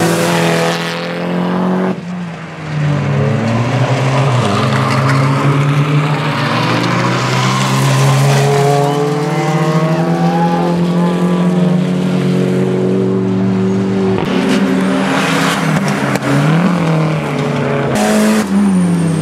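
Several racing car engines running hard on track, their pitch climbing and dropping through gear changes and lifts as the cars go by, with more than one engine heard at once.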